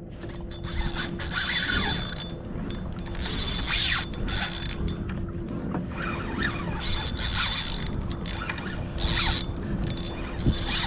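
Penn Conflict spinning reel ratcheting and whirring in repeated bursts of about a second as a hooked redfish is fought in.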